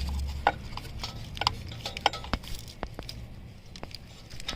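Scattered light clicks and taps of hands and metal tools handling parts in a car's engine bay, with about half a dozen sharp ticks spread irregularly.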